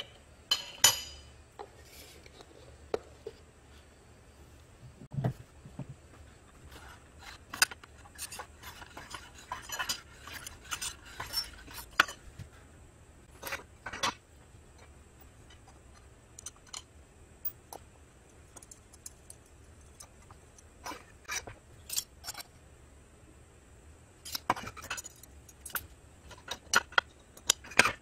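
Irregular metallic clinks and knocks as a steel knife blank and small hand tools are set down and moved against a steel angle plate on a workbench, in scattered clusters with short pauses between.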